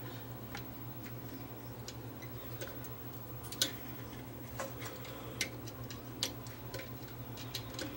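Light, scattered clicks and taps of a sheet-metal top cover and an antenna cable connector being handled and fitted, roughly one a second and the loudest about halfway through, over a steady low hum.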